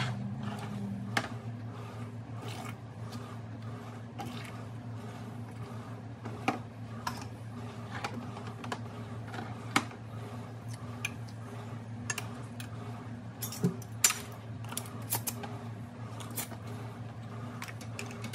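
Irregular clinks and knocks of a ladle in a pot, a plastic canning funnel and glass canning jars as hot salsa is ladled into jars and the jars are set into a water bath canner, over a steady low hum.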